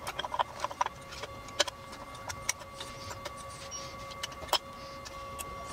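Irregular small clicks and taps of plastic gears and metal parts being handled and fitted into an orbital washer transmission's gear housing, over a steady faint hum.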